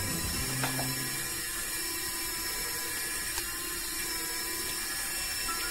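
HZZL-3 automatic interfacial tension tester's lift drive running steadily as it raises the sample cup at the start of a measurement, an even hiss with a faint steady tone in it.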